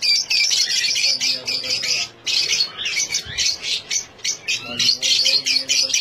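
A flock of small parrots, lovebirds among them, chattering in an aviary: a dense, continuous mass of rapid high-pitched chirps and squawks.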